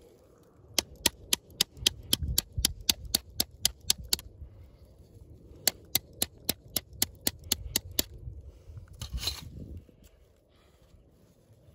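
Two quick runs of sharp clicks, about four a second, each lasting a few seconds, followed by a short rasping scrape near the end.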